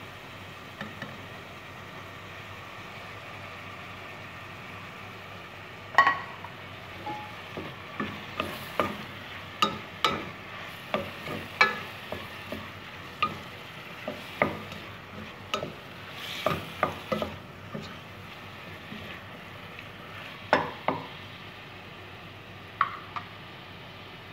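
Chicken, onion, carrots and bell pepper sizzling in a stainless steel pot on a gas hob. From about six seconds in, a wooden spoon stirs them, knocking and scraping against the pot in a run of sharp clicks that thin out near the end.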